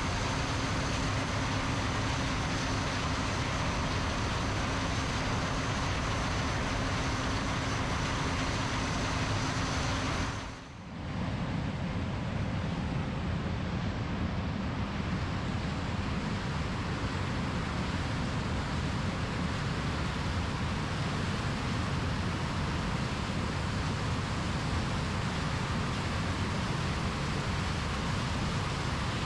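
John Deere combine harvesters running steadily while harvesting corn, an even machine noise. It drops out briefly about ten seconds in, then carries on.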